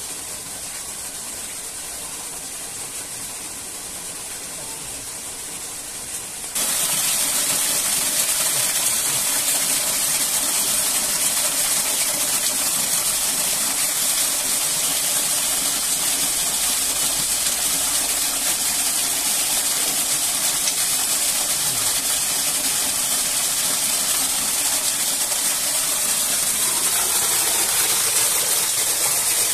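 Steady rushing of a waterfall, a dense hiss-like noise that steps abruptly louder about six seconds in and then holds even.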